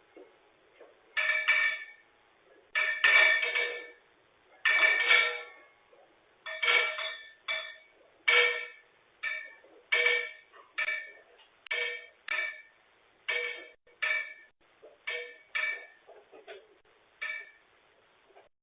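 A series of chime-like tones, each struck and fading within about half a second, repeating at irregular intervals of roughly a second, loudest in the first few seconds and growing softer toward the end.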